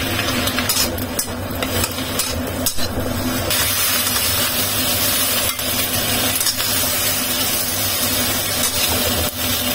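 Sliced onions sizzling in a hot wok while a spatula stirs and scrapes them against the pan. The sizzle grows fuller about three and a half seconds in.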